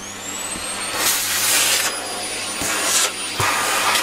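Vacuum cleaner switched on: its motor whine rises in pitch as it spins up, then it runs steadily with a loud suction hiss that swells several times as the nozzle is worked around.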